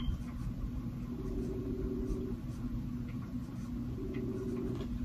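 Outgoing phone call ringing over a phone's speaker: a ring tone that sounds for about a second, twice, roughly three seconds apart, over a steady room rumble and hum.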